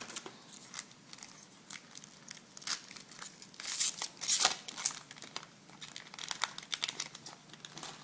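A trading-card pack wrapper being torn open and crinkled by hand, with scattered crackles and the loudest tearing and rustling about four seconds in.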